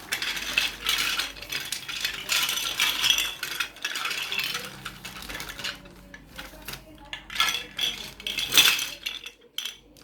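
Small plastic Lego pieces clattering and clicking against each other, in two spells of many quick clicks, the loudest near the end.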